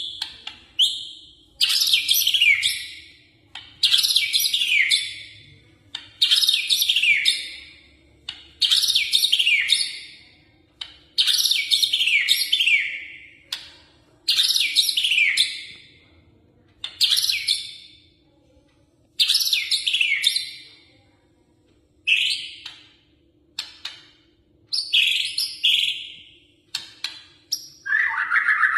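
White-rumped shama singing vigorously: a loud, clear song phrase about every two seconds, each a quick run of falling whistles, with a lower-pitched phrase near the end. A faint steady hum runs underneath.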